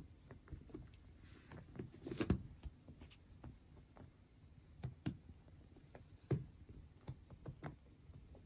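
Faint scattered taps, clicks and scratches of a kitten's paws and claws on a leather office chair as it clambers over the armrest and seat, the loudest tap about two seconds in.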